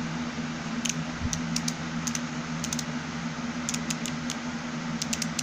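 Small stubby ratchet screwdriver clicking as it is worked by hand: about fifteen light, sharp clicks at uneven spacing, some in quick runs of two or three. A steady low hum of a fan or air conditioner runs underneath.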